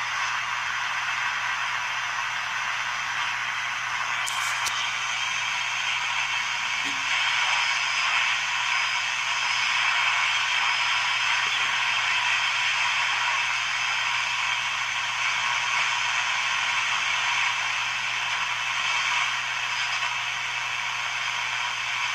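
Hallicrafters S-38 shortwave receiver's speaker giving out steady band static and hiss with a low hum underneath, tuned to an empty stretch near the 80-meter ham band. A short click comes about four seconds in.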